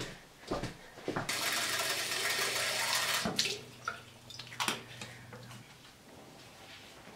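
Water running from a bathroom sink tap for about two seconds, then shut off abruptly, with a few light knocks before and after.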